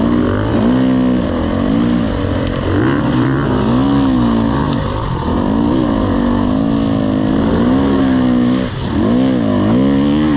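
Off-road racing engine revving up and down over and over as the throttle is opened and closed along the trail, its pitch climbing and falling every second or two. Briefly drops out near the end, then picks up again.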